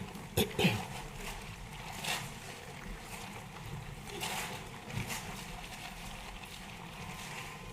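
Steady low background rumble, broken by a couple of sharp knocks in the first second and fainter knocks about two and five seconds in.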